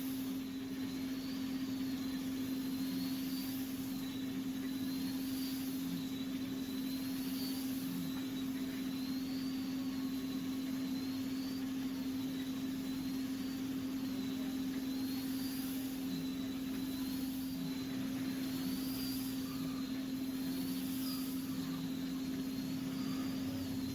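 Steam-operated mawa machine running with a steady motor hum. A faint high squeal rises and falls about every two seconds, in time with the kettle's stirrer going round.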